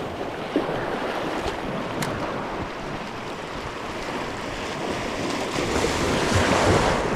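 Waves washing against a rocky shore, with wind buffeting the microphone; the wash swells a little near the end.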